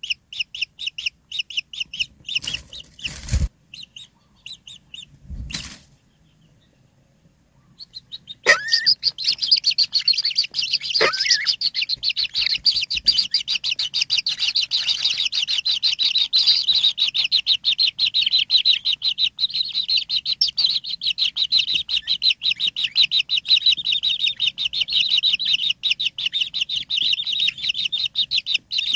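White-throated kingfisher nestlings begging for food from the parent at the nest: a rapid, continuous stream of high chirps. Two brief rustling thumps come about 2.5 and 5.5 seconds in, then a short lull, before the chirping resumes louder and denser from about 8 seconds on.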